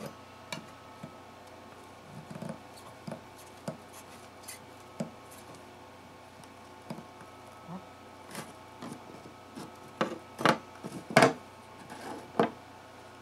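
Thin metal spatula scraping and prying under a heated guitar bridge on a spruce top, with scattered clicks and scrapes. About ten seconds in come several louder cracks as the old glue joint lets go and the bridge comes free.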